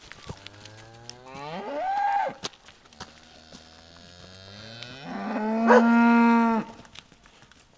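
Fjällko (Swedish mountain cattle) cows mooing: two long moos. The first rises in pitch and ends about two and a half seconds in; the second starts low and grows louder towards its end.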